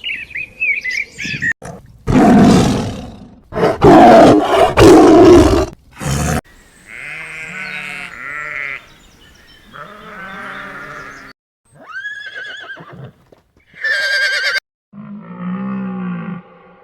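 A string of farm-animal calls one after another: brief bird chirps at the start, then loud, rough, noisy calls for a few seconds, followed by a series of shorter pitched calls, some high and some low.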